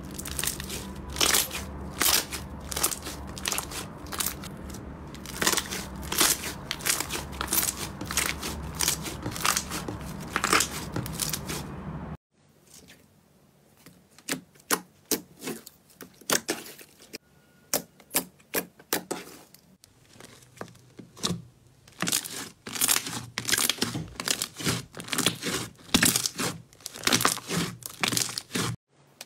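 Slime being squeezed and pressed by hand: rapid sticky crackling and popping clicks. A low hum runs under the first part. After a cut about 12 seconds in, the clicks are sparser at first, then grow dense again.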